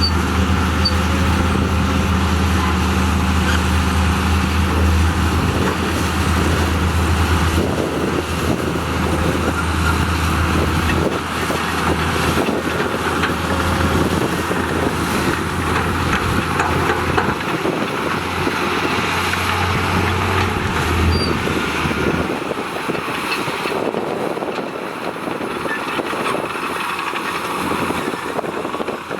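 Diesel engines of heavy earthmoving machinery running under work. A deep, steady engine hum is strongest in the first eleven seconds, comes and goes after that, and drops away about 22 seconds in, leaving a lighter engine and mechanical noise.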